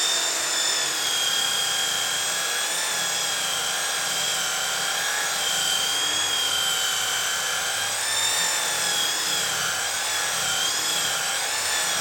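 Electric sander with 80-grit paper running steadily against cherry wood, its motor whine wavering slightly in pitch as the load changes.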